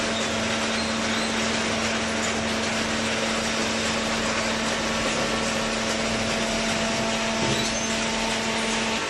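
Hydraulic cardboard baler running: a steady, dense mechanical noise with a constant low hum.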